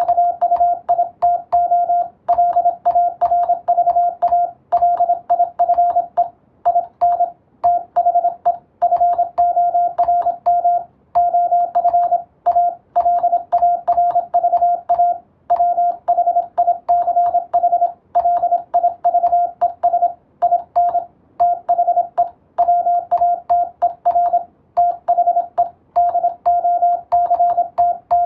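Morse code (CW) tone at about 700 Hz, keyed on and off in quick runs of dots and dashes with short pauses between words, at the brisk pace of telegraph practice. Faint clicks come with many of the keyings.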